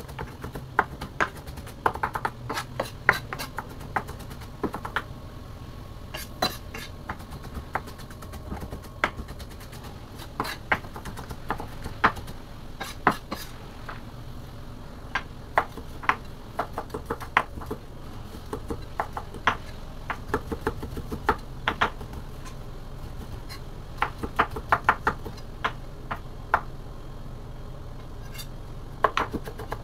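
Chef's knife dicing carrots on a bamboo cutting board: quick runs of sharp knocks as the blade hits the board, broken by short pauses.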